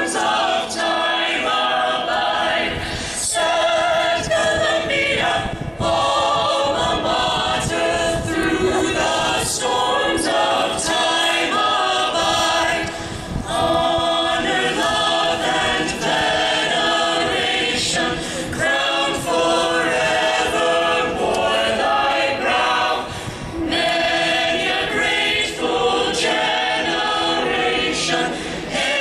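An a cappella choir singing, heard through the outdoor public-address speakers, with crowd noise under it.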